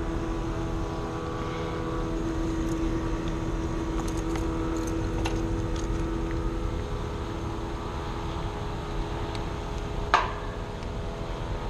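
Heat pump condenser unit running with a steady hum, its reversing valve energized with 24 volts. A few light clicks, and one sharper click about ten seconds in.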